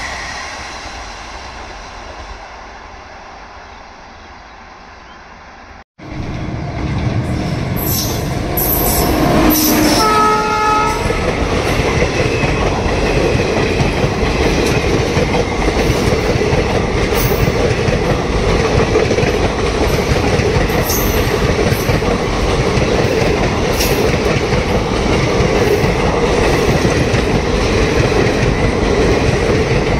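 Indian Railways train passing close by: a short horn blast about ten seconds in, then the steady rumble and clickety-clack of coaches running over the rail joints. Before that, an earlier train sound fades away and cuts off about six seconds in.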